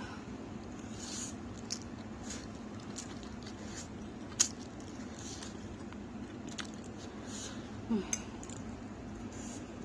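Close-up mouth sounds of eating spicy Korean noodles: scattered wet smacks and clicks of chewing, with one sharp click about four and a half seconds in and a short falling squeak near the end, over a steady low hum.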